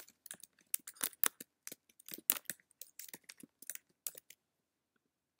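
Typing on a computer keyboard: a quick, irregular run of keystroke clicks that stops about four seconds in.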